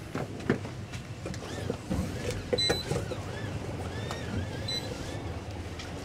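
Boat creaking and squeaking, with a few sharp knocks, over the low steady hum of idling outboard engines.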